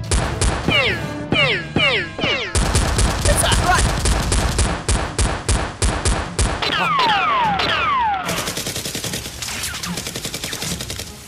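Dubbed-in automatic gunfire sound effects: rapid bursts of shots with falling whistle-like sweeps near the start and again a little past the middle, turning into a fast, even rattle for the last few seconds.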